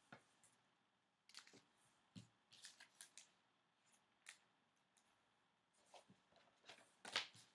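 Faint scattered scrapes and clicks of a trading card and its plastic holder being handled, the loudest near the end.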